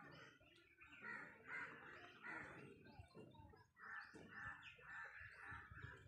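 Birds calling faintly in a series of short, separate calls, more of them in the second half.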